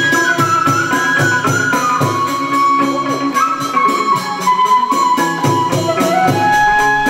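Chầu văn ritual music: a melody played over a steady, fast clicking percussion beat, with a đàn nguyệt (moon lute) in the ensemble.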